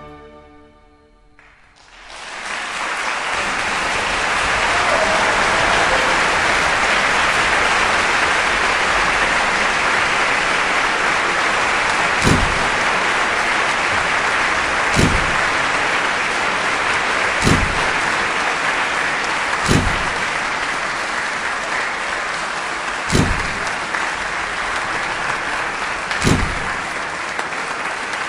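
Audience applauding, setting in about two seconds in as the last oboe note fades, with a dull thump every two to three seconds through the second half.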